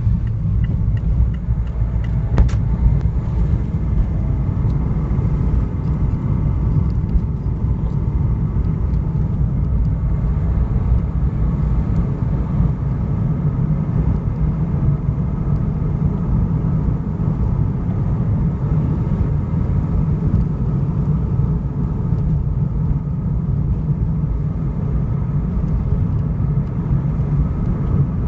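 Car driving on the road: a steady, loud low rumble of engine and tyre noise.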